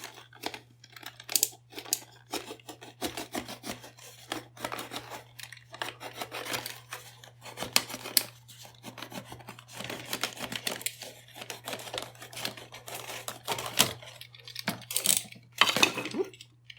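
Razor knife slicing and scraping through a pipe in irregular, rasping strokes with short pauses, the loudest strokes coming near the end.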